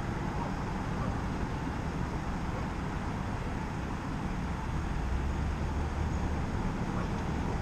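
Steady rush of wind and road noise recorded on a GoPro while cycling, with a low rumble that swells a little after the middle.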